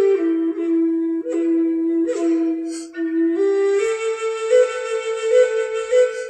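Solo flute playing a slow melody of held notes, stepping down to a low sustained note and back up, with a brief pause for breath near the middle.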